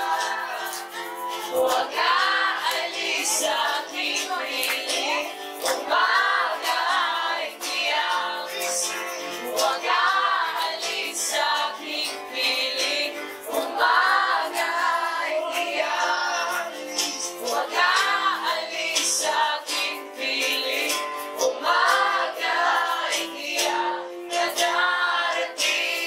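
A song: singing voices over music, in sung phrases one after another, with high voices carrying the melody.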